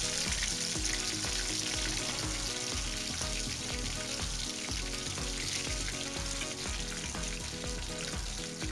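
Breaded chicken drumsticks deep-frying in hot oil in a wok: a steady, dense sizzle of bubbling oil.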